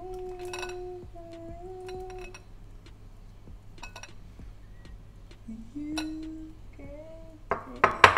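A person humming a slow tune in long held notes while ceramic bowls clink on a countertop. Near the end comes a louder clatter of dishes knocking together.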